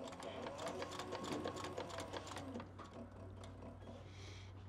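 Cobra Class 18 leather sewing machine stitching through leather: a quick, even run of needle strokes that stops about two and a half seconds in. A few lighter clicks follow over a steady low hum.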